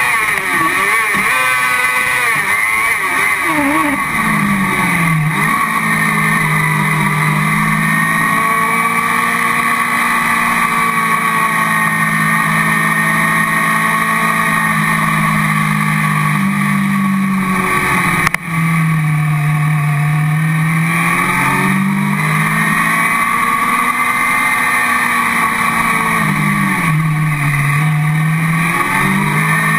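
Car-cross buggy's motorcycle-derived engine heard from on board at racing revs on a dirt track: climbing through the gears in the first few seconds, then held high with dips and swells as the driver lifts and shifts, with a sharp momentary cut about 18 seconds in.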